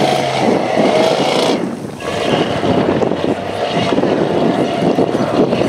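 Rock-crawler buggy's engine revving hard as it climbs a steep dirt hill, easing off briefly about two seconds in, then pulling again.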